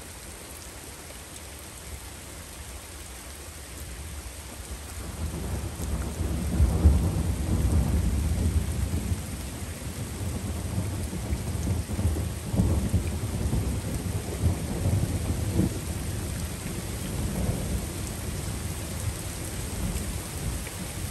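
Steady rain falling, with a long roll of thunder that builds from about five seconds in, peaks a couple of seconds later and keeps rumbling in swells after that.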